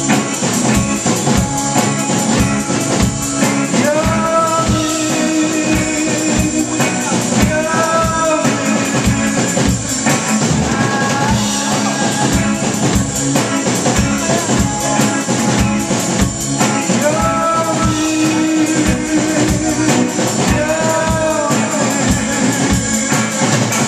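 Live rock band playing: a drum kit keeping a steady beat under electric guitars, with a man singing recurring phrases over them.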